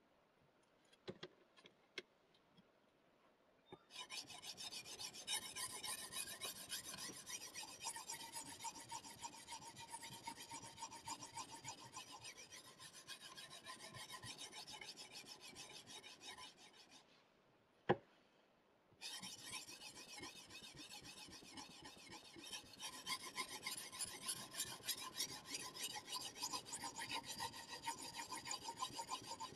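CBN sharpening stone on the guide rod of a KosiM sharpener, stroked back and forth along a VG-10 knife's edge: a continuous scraping rasp. A few faint clicks come first as the stone is fitted. Past the middle the strokes stop for about two seconds around one sharp click as the clamped knife is flipped over, then the scraping resumes.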